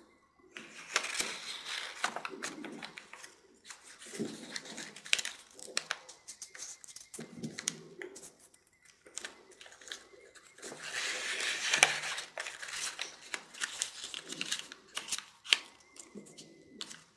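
A square of origami paper being folded and creased by hand on a table: rustling and crinkling in several spells, with sharp little clicks as the folds are pressed.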